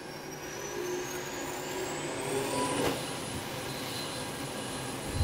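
Boeing 737's auxiliary power unit, a small gas turbine, spooling up just after its starter drops out. It makes a rushing noise with a high whine that rises for about three seconds and then holds steady as the unit comes up to speed.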